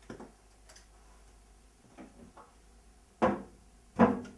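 A few faint clicks, then two short, louder knocks less than a second apart near the end: handling or movement at a wooden hi-fi cabinet.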